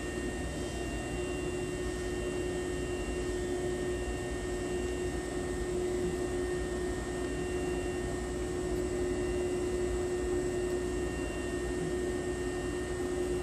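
Steady electrical hum and hiss inside a Hankyu train car standing at a platform with its doors open.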